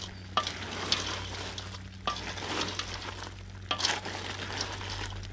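Cooked crayfish being stirred with a wooden spoon in a stainless steel pot: shells rustling and clattering, with a few sharp knocks of the spoon against the pot, over the sizzle of the hot cooking liquid.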